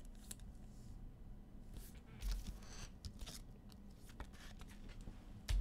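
Quiet handling of trading cards on a table: scattered light clicks and short paper-like rustles, with a soft thump about two seconds in and another near the end.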